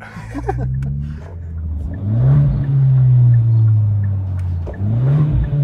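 Kia Ceed GT's 1.6-litre turbocharged four-cylinder pulling under throttle through a straight-through aftermarket exhaust silencer, a deep drone. The revs jump sharply about two seconds in and hold, dip briefly near the end and climb again.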